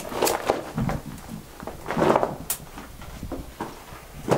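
Footsteps and scuffs on the rock floor of a mine tunnel, irregular and uneven, with a sharp click about two and a half seconds in.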